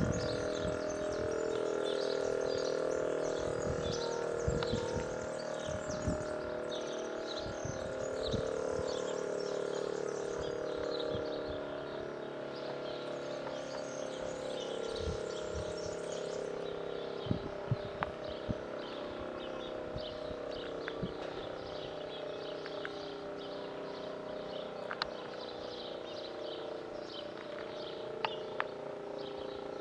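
Small birds chirping and tweeting over a steady droning tone that slowly fades, with a few sharp clicks.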